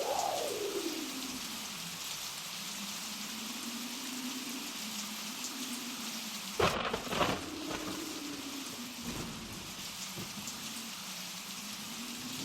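Blizzard wind howling over a steady hiss, its tone slowly rising and falling. About halfway through, two sharp knocks of an axe chopping a log.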